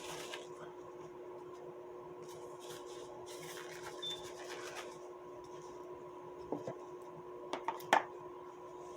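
Soft rustling and handling noises, then a few sharp knocks near the end, over a steady electrical hum.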